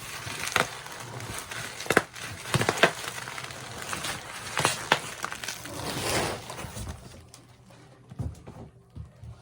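Packaging being handled as a shipped box is opened: crinkling and rustling with a series of sharp clicks and knocks, a longer rustle about six seconds in, then a few quieter ticks near the end.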